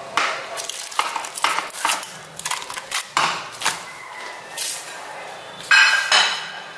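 Slime with foam beads being squished and handled in a plastic bowl: irregular sticky crackling and popping clicks, with a louder burst near the end.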